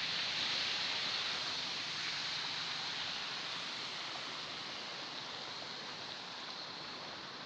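Steady rushing hiss of floodwater, easing slightly toward the end.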